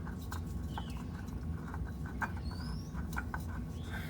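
Scattered light clicks and taps of an oil filter being handled and worked up into place under the car, over a steady low hum, with a few short high rising chirps.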